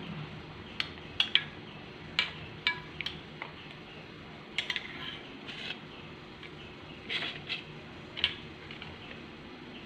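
Light clinks and taps of a spoon against a stainless steel pot and a ceramic plate, about a dozen scattered irregularly, as fried balushahi are dipped into cold sugar syrup.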